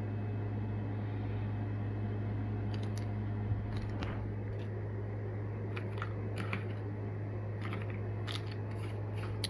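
Light clicks and crinkles of packaged fishing tackle being handled, scattered through the second half, over a steady low electrical hum.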